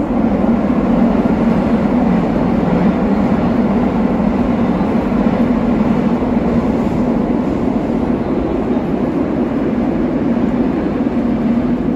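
Steady, loud rumble of a vehicle in motion, heard from on board.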